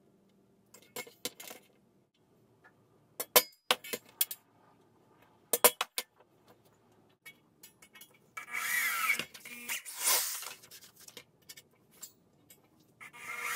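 Sharp metallic taps of a hammer on a centre punch set against a bronze Sabian cymbal, denting the spots to be drilled for rivets. From about two-thirds of the way in, an electric hand drill bores into the cymbal with a dense grinding screech for about three seconds, starting again just before the end.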